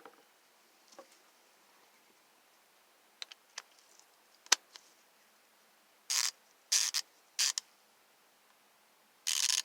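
A few sharp clicks and a knock as a socket and extension are fitted, then the ICON G2 3/8-inch drive locking flex-head ratchet being worked back and forth: four short bursts of rapid ratcheting clicks in the last few seconds.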